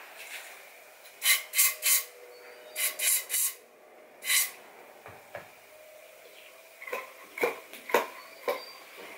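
Aerosol hairspray sprayed into a rubber scooter handlebar grip in about seven short hissing spurts, in two groups of three and then one, wetting the grip as a lubricant so it slides onto the bar. Near the end, a run of short sharp snaps and knocks as the wet grip is flicked to shake the excess out.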